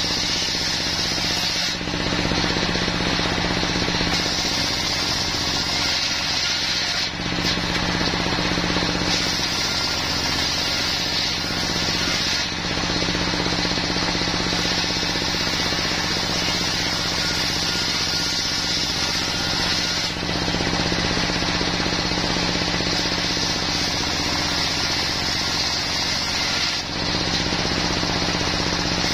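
Large circular saw blade, belt-driven by a stationary single-cylinder diesel engine, ripping a plank of wadang timber into rafter stock. The steady engine drone runs under a high saw whine, and the sound dips briefly a few times.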